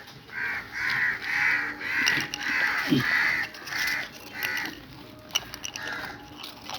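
Crows cawing over and over, about two harsh caws a second for several seconds, then a few fainter caws near the end.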